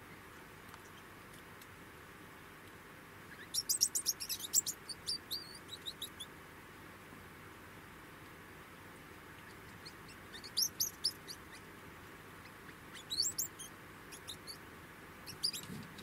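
Degus squeaking: four bursts of rapid, high-pitched chirps, the first and longest about three and a half seconds in, with quiet gaps between.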